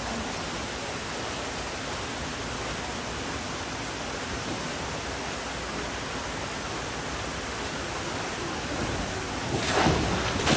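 Steady rush of water streaming out of a tube waterslide's outlet into the splash pool. Near the end it swells into a loud splash as a rider shoots out of the tube into the pool, soaking the phone.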